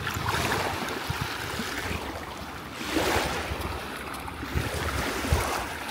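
Small waves lapping on a sandy river shore, with a louder wash about three seconds in, and wind rumbling on the microphone.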